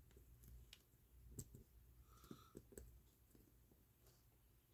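Near silence with a few faint small clicks as fingers work a leather watch strap and its lug pin into the watch case's lug holes.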